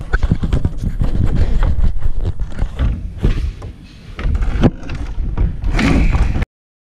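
A crate of plastic water bottles jostling and knocking as it is carried up stairs, over a heavy low handling rumble. It stops abruptly near the end.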